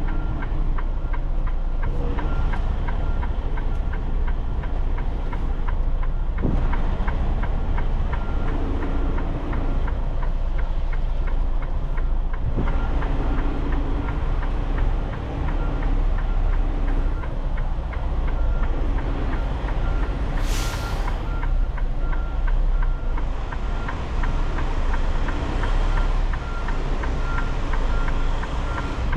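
Semi truck's diesel engine running while the truck manoeuvres slowly, with a backup alarm beeping at a steady repeating rate. A short hiss of air, typical of an air brake, comes about two-thirds of the way through.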